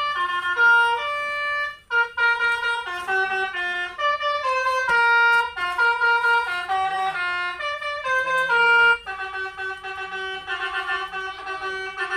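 Basuri musical horn playing a melody: a run of held, pitched horn notes stepping up and down, two to three notes a second.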